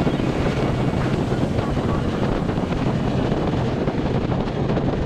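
Wind rushing over the microphone of a motorcycle riding at about 70 km/h, with a steady low rumble of engine and road noise underneath.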